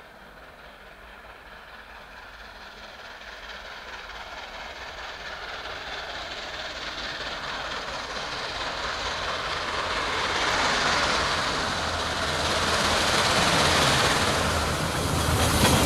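NSWGR AD60 Beyer-Garratt steam locomotive 6029 approaching with its train, the sound growing steadily louder as it nears.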